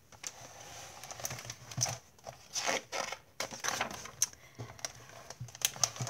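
Paper pages of a picture book being handled and turned: irregular rustling and crinkling of paper.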